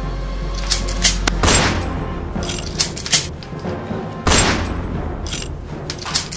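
Gunshot sound effects: a string of sharp shots, with two big echoing booms about a second and a half and four seconds in, over background music.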